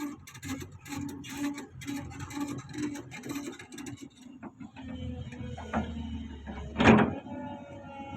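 Heavy machinery working: a rapid metallic clatter over a pulsing low note, then a steady mechanical whine, with one loud clank about seven seconds in.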